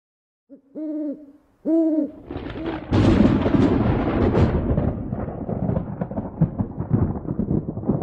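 Two owl hoots, then a thunderclap that rumbles on and slowly fades.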